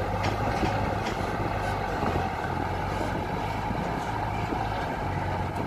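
Diesel engine of a Hino dump truck running steadily under load as the truck creeps forward through soft mud.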